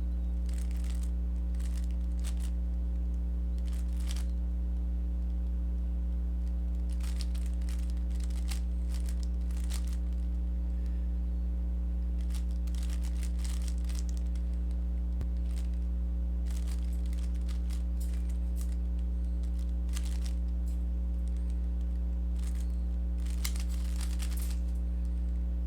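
Steady low electrical hum throughout, over which come faint runs of rapid clicking and rattling from a Rubik's cube's layers being turned through algorithms, in several bursts separated by short pauses.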